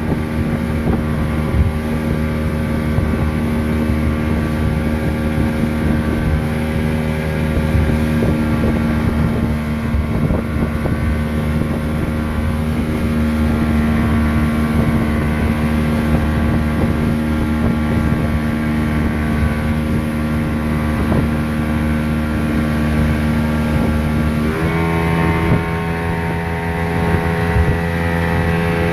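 Motorboat engine running steadily under way. Its pitch steps up near the end as the throttle is opened, with some wind on the microphone.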